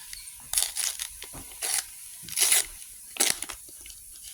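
Foil trading-card booster pack wrapper being torn open and crinkled: about five short tearing and crinkling bursts, the loudest about two and a half seconds in.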